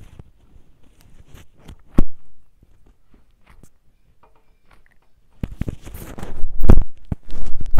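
Close-miked ASMR handling sounds: scattered soft clicks, a sharp knock about two seconds in, then a loud run of crackling, scratching noise near the end.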